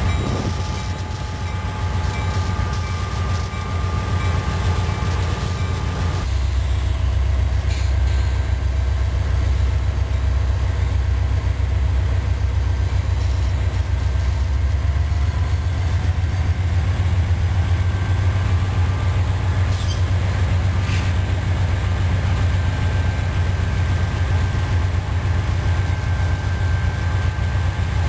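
Diesel-electric locomotives, a Norfolk Southern GE wide-cab and a Conrail-painted EMD SD60I, working at full throttle while moving slowly with a heavy coal train on a grade: a loud, steady, deep engine rumble. About six seconds in the low rumble grows stronger and a thin steady high tone drops out.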